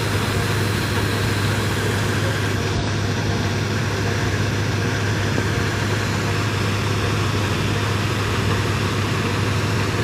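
Laverda combine harvester running steadily with a constant low engine hum while its unloading auger empties wheat grain from the grain tank into a trolley.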